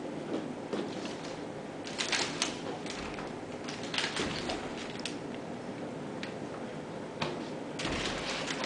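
Wicker basket creaking and rustling, with irregular clicks and taps, as a kitten plays in and around it; the clicks come in clusters about two seconds in, around four seconds in and near the end.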